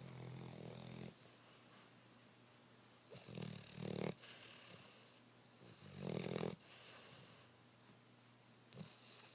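Pit bull snoring in its sleep: low rumbling snores about every three seconds, each followed by an airy breath out.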